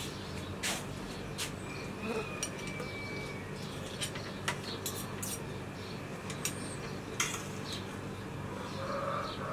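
Metal forks clinking and scraping against a metal serving tray while boiled lamb-head meat is picked apart, in irregular sharp clicks.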